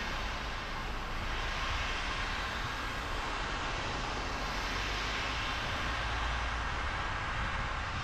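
Car driving on a rain-soaked road: a steady hiss of tyres on wet tarmac over a low road rumble.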